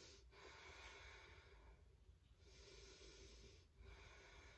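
Faint, slow breathing by a woman holding a yoga pose: about three long breaths, each lasting a second or more, with short pauses between them.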